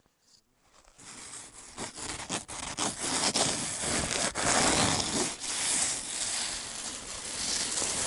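A hand rubbing and scratching across the frost-covered nylon fly of a The North Face tent: a scratchy, crackly rustle made of many short scrapes, starting about a second in.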